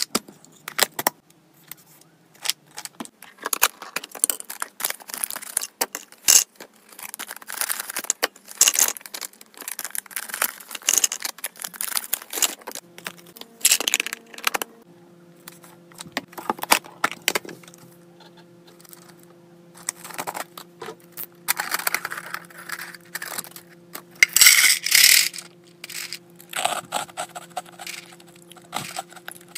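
Small dry hamster biscuits and freeze-dried treat cubes clattering, clicking and rattling against clear plastic containers as they are handled and stirred by hand. Sharp clicks of a plastic storage container's push-button lid are mixed in.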